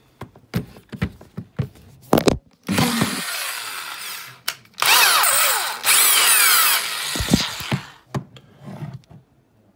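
Corded Bosch impact drill's electric motor run up twice, about 2 s and then about 3 s, with its pitch sweeping up and down as the speed changes. A few handling clicks and knocks come before the first run and after the second.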